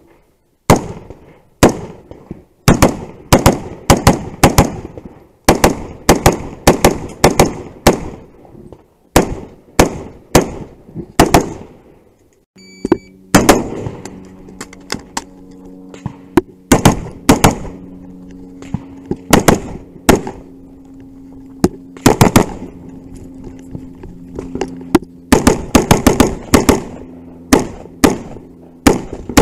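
AR-pattern carbine firing rapid strings of shots, many in quick pairs and triplets, with a short pause near the middle for a reload. A low steady hum sits under the shots in the second half.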